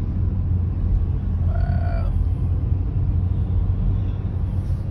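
Steady low road and engine rumble inside the cabin of a moving Kia car, with one short high-pitched call about two seconds in.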